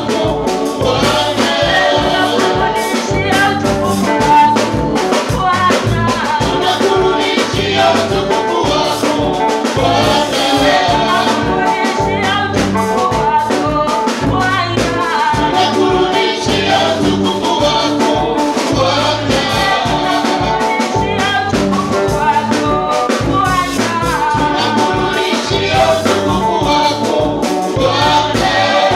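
Gospel praise singing: a woman's lead voice with a group of backing singers, amplified through microphones, over instrumental backing with a steady beat.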